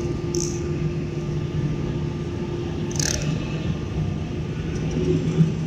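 Airbus airliner's turbofan engine and airflow heard from inside the cabin on approach: a steady drone with a low hum. Two brief hissy clicks cut through it, about half a second in and about three seconds in.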